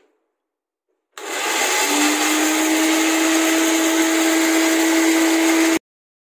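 Pensonic electric blender with a small dry-grinding jar, milling dried chillies to powder. The motor starts about a second in, its whine rising briefly and settling to a steady pitch, then stops abruptly near the end.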